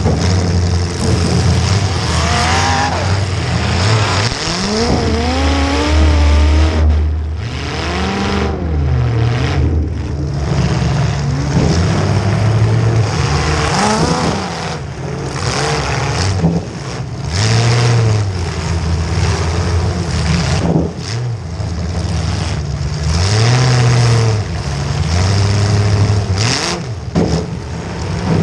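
Demolition derby car's engine revving up and falling back again and again as it drives, heard close from the hood. Several sharp bangs of metal crashing on metal from hits are scattered through.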